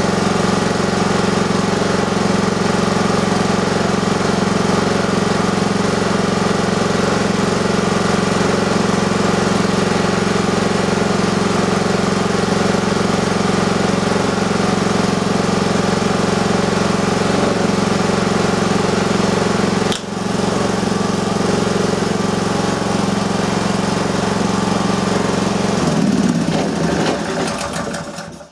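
A Honda generator's small single-cylinder petrol engine runs steadily under test. Its output reads a bit low on voltage and hertz. The sound fades away near the end.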